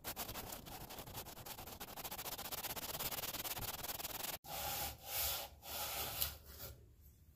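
Engine cylinder head being lapped by hand on wet 220-grit wet/dry sandpaper laid over a marble slab, to flatten a warped head: quick back-and-forth rubbing strokes, then a few slower, longer strokes that die away near the end.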